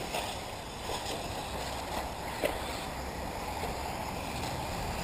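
1/8-scale electric RC off-road buggies running on the track, a steady noisy whir of motors and tyres, with a couple of brief knocks.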